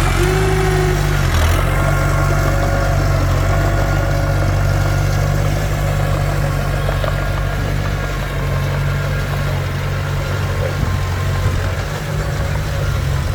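Komatsu D21P bulldozer's diesel engine running steadily, with a deep even drone.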